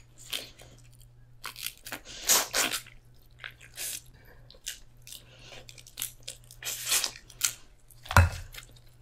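Close-miked chewing and crunching of boiled crawfish in short, irregular bites, with a dull thump about eight seconds in.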